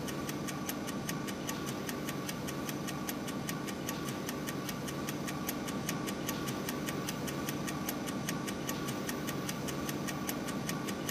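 Restored Man-nen dokei, Hisashige Tanaka's 1851 perpetual clock, ticking evenly at about five ticks a second. It is running, its mainspring freshly wound.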